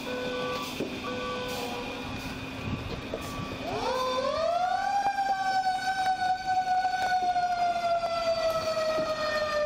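An emergency vehicle's siren winds up in pitch over about a second and a half, then holds and slowly falls. Before it, a vehicle's backing-up beeper beeps steadily for the first two seconds.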